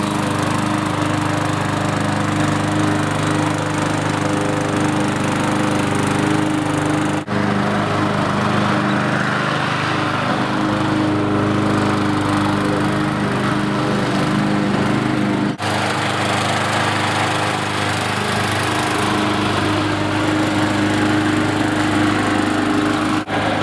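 Petrol walk-behind rotary lawn mower running steadily as it is pushed through grass, with two very brief breaks in the sound.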